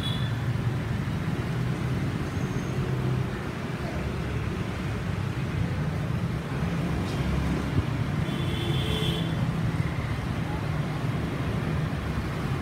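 Steady low rumble of road traffic and passing cars, with a brief high tone about two-thirds of the way through.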